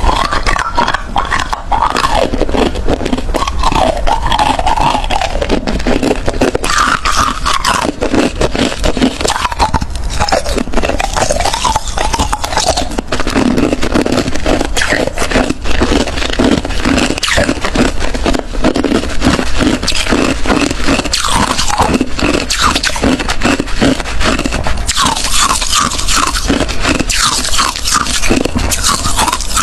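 Ice being bitten and chewed, close-miked: continuous, rapid, crunchy cracking.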